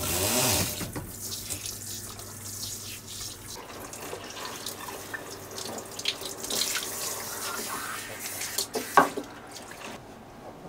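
Kitchen sink sprayer running water over a wet Persian cat in the sink, splashing with small drips and clicks. A sharp knock comes about nine seconds in, and the spray dies down near the end.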